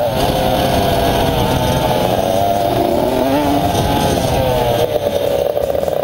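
Dirt bike engines revving up and down as they ride, heard close up from a camera on one of the bikes.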